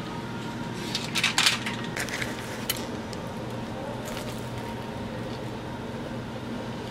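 A few light knocks and clinks over a steady low hum. The clinks are loudest about a second in.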